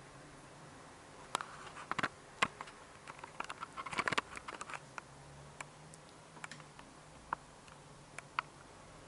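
Irregular light clicks, taps and scratches from two newborn kittens wrestling on a quilt, their claws catching and scraping the fabric. The clicks come thickest around two and four seconds in, then thin out to a few single taps.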